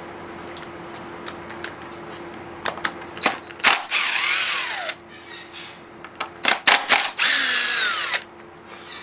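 Cordless impact driver running in two short bursts of about a second each, undoing the engine's crankcase bolts, its pitch falling away as each burst ends; light clicks and taps of tool and metal parts in between.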